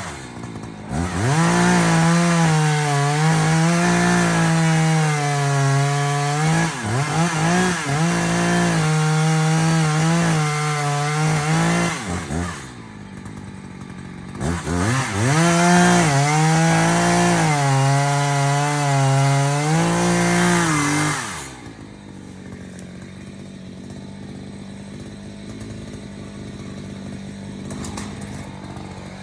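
Two-stroke chainsaw run at high revs in two long bursts, its pitch dipping again and again as it bogs down in the cut. It drops off about two-thirds of the way through, leaving a much quieter steady hum.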